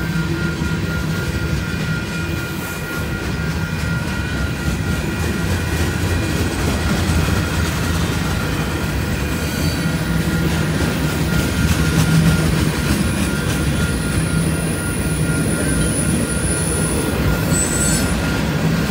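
Freight train of tank cars, covered hoppers and boxcars rolling past at close range, a steady rumble of wheels on rail, with a grade-crossing bell ringing in quick even strokes. A high wheel squeal comes in about halfway and fades near the end.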